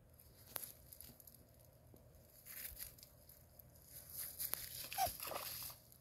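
Leaves and stems rustling and crunching in irregular bursts as a Bernese mountain dog pushes its paws and muzzle through streamside plants, with a sharp click about half a second in.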